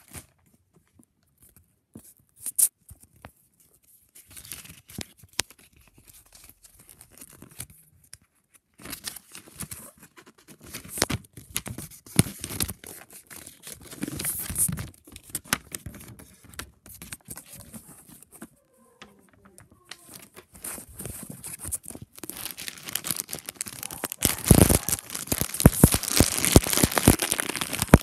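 Blue foil blind-bag packets being torn open and crinkled by hand, in irregular rustling bursts after a sharp click, getting louder and busier near the end.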